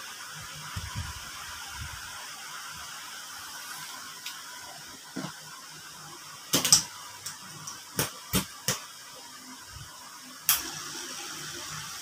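A steady low hiss, with a handful of sharp clicks and knocks about halfway through and one more near the end: handling noises as the hang-on aquarium filter is set up and switched on.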